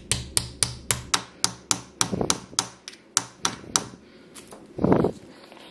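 Wooden digging stick tapped over and over into a plaster dinosaur dig egg, a rapid even run of sharp taps, about four a second, that stops after about three and a half seconds. About five seconds in comes one brief louder vocal sound.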